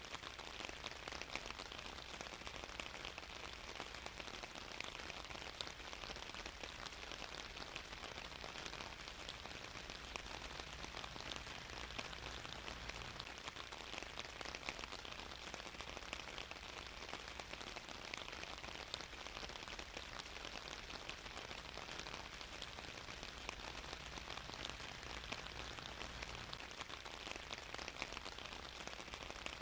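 Steady rain falling on a surface, a dense even patter of drops with no let-up.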